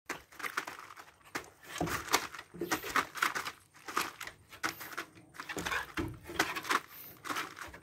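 A dog's claws scratching and scrabbling against wooden fence boards as she jumps up at the fence. Irregular scrapes about twice a second, with a few heavier thumps.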